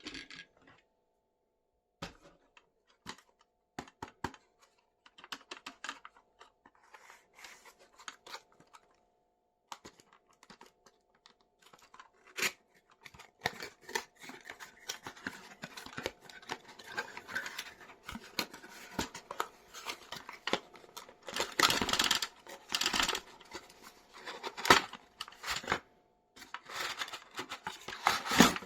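Toy packaging being opened by hand: scattered clicks and rustling that build into louder tearing and crinkling about three quarters of the way through.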